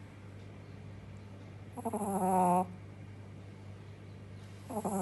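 Shih tzu puppy snoring in its sleep: two snores about three seconds apart, each under a second long, over a steady low hum.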